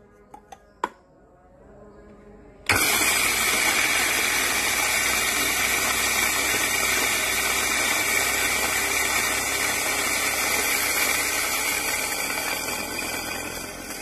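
A few small clicks, then an electric burr coffee grinder switches on suddenly, about three seconds in, and runs steadily, grinding coffee beans at setting 3, a grind suited to a moka pot. It grows a little quieter near the end.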